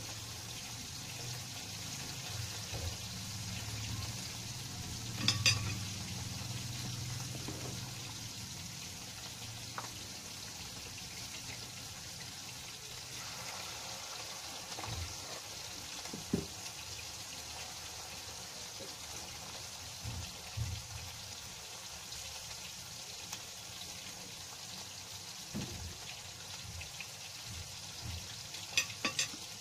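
Anchovy fritters sizzling steadily in hot oil in a frying pan. Utensils knock against the pan a few times, about five seconds in and again near the end.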